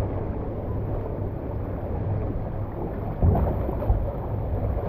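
Water rushing and a rider sliding down an open fibreglass water slide, a steady rumbling rush with two sharp knocks a little after three seconds in.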